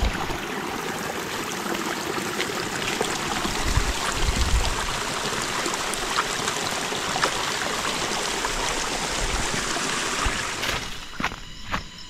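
Waterfall's water falling and rushing in a steady, dense hiss; near the end it drops away and background music comes in.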